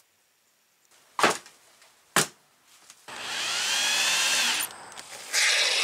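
Two sharp knocks, then an electric drill with a hex driver bit running in two bursts of a second or more each, driving screws through a plastic sheet into a plastic hull; its whine rises as the motor spins up.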